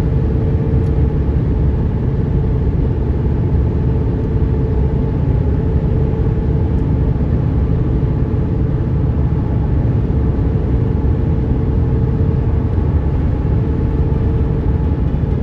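A vehicle driving at a steady speed: a constant low road rumble with a faint steady hum, no revving or changes in pace.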